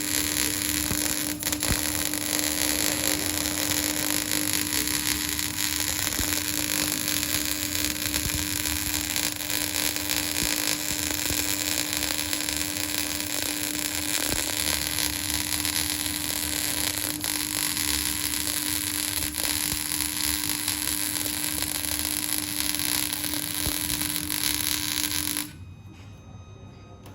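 Electric arc welding: a steady crackling hiss with a constant hum underneath, cutting off abruptly about 25 seconds in as the arc is broken at the end of the weld.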